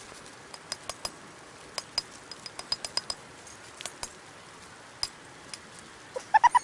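Irregular sharp clicks, then near the end a quick run of four or five short squeaky kitten mews, each rising a little in pitch.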